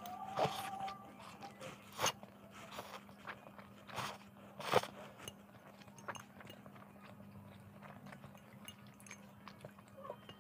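Close-up eating sounds: chewing a mouthful of spicy instant noodles, with a few sharp clicks of a metal fork against a glass bowl.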